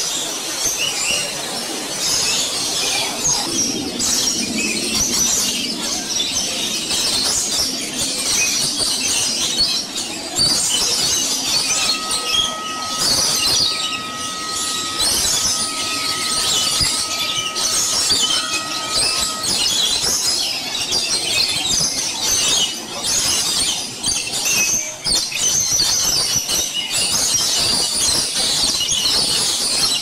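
A dense chorus of many aviary birds, among them parrots, chirping and squawking. For a stretch in the middle, a steady whistled tone sounds in several held segments.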